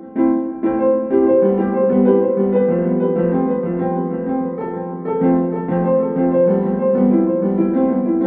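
Background piano music: a continuous run of single notes and chords.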